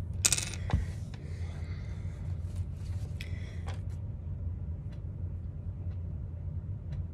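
Quiet handling sounds as a matte eyeshadow is picked up and swatched: a short rustle just after the start, then faint rubbing and small ticks, over a steady low hum.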